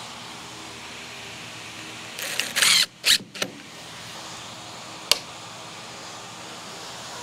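Cordless drill run in short bursts driving a screw into a wooden porch post, the longest burst about half a second, two shorter ones right after. A single sharp click follows about five seconds in.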